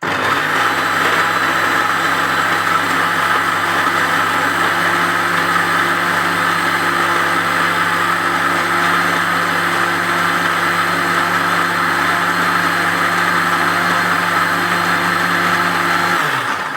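Electric kitchen blender running at a steady speed, blending alligator pepper seeds, bitter kola, ginger and water into a drink. It starts suddenly and runs without change, then cuts off near the end.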